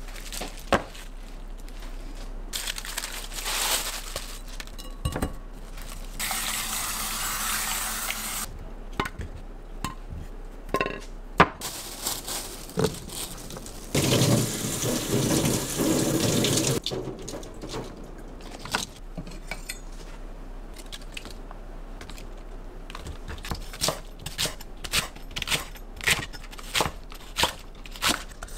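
Kitchen tap running in short spells into a sink, with dishes and utensils clinking and knocking between them. Evenly spaced knocks come about once a second near the end.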